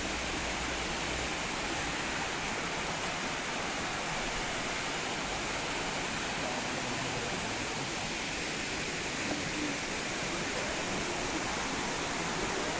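Waterfall, water pouring down in a steady, even rush.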